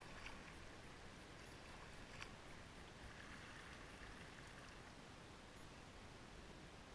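Faint water lapping and dripping around an inflatable kayak being paddled on a river, with one light click about two seconds in.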